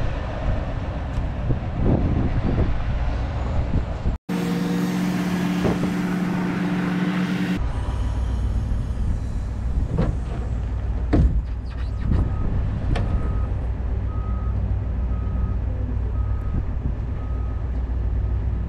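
Heavy vehicle engines running with a low rumble and a couple of sharp clunks. In the last third, a loader's reversing alarm beeps about once a second.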